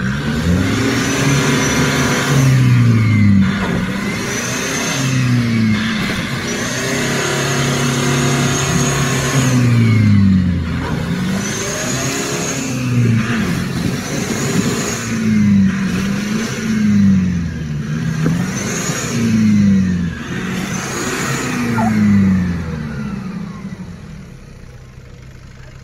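Nissan Patrol Y61's engine revved hard about nine times in a row, each rev climbing and dropping, as the truck tries to drive out of deep mud where it is stuck.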